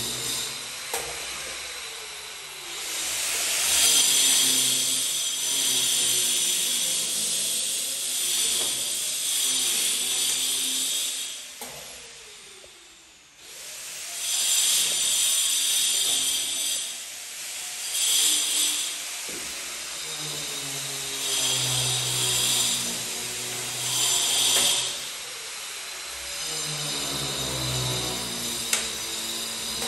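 Handheld electric power tool run in about five bursts of a few seconds each, its motor whining up to speed under load and winding down between runs; the longest burst comes first.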